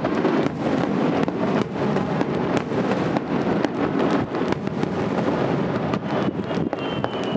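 Aerial firework shells bursting in quick succession: sharp bangs about once a second over a dense, continuous rumble of reports and crackle. A faint high whistle comes in near the end.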